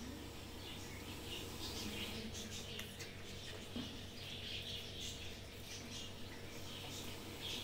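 High-pitched chirping from small animals, many short calls a second, over a steady low electrical hum.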